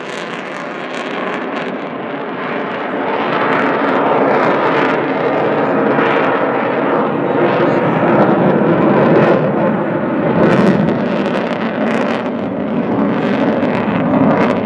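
Continuous jet engine noise from two Sukhoi T-50 (PAK FA) fighter jets manoeuvring overhead, swelling and easing in loudness as they turn.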